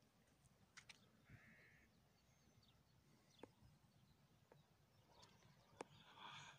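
Near silence: faint outdoor quiet with a few faint clicks and a brief rustle near the end.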